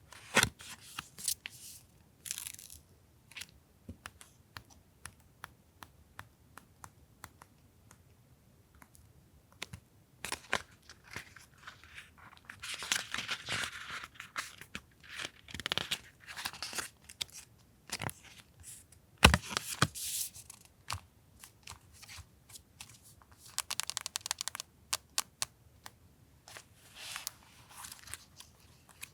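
Paper and plastic packaging being handled: crinkling, rustling and tearing in short spells, with scattered light taps and clicks and one sharp knock about two-thirds of the way in.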